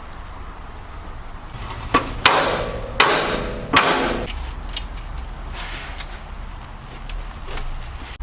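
Four sharp metal-on-metal strikes on a 1/8-inch steel strip, each ringing on briefly, as the strip is bent to shape; a few light clicks follow.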